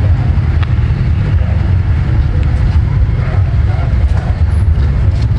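Steady low rumble with faint voices of people in the background.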